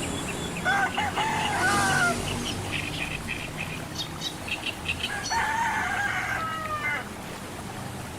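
Rooster crowing twice, each crow a long bending call, with short clucks or chirps between the crows.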